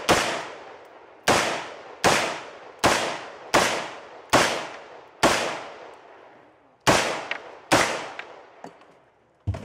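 A string of gunshots fired on a competition shot timer: about ten shots, roughly one every three-quarters of a second, each echoing and fading, with a longer pause about six seconds in.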